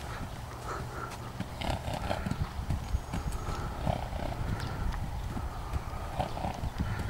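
A horse's hoofbeats on a gravel arena surface as the horse trots loose, a steady run of footfalls.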